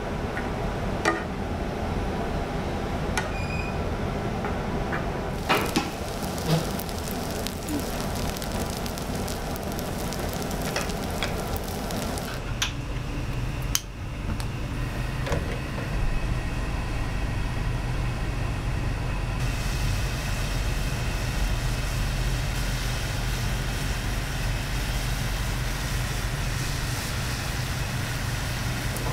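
Fried rice with kimchi sizzling on a hot griddle while a spatula scrapes and taps against it. About twelve seconds in, this gives way to the steady low rush of a gas stove burner under a pan of oil.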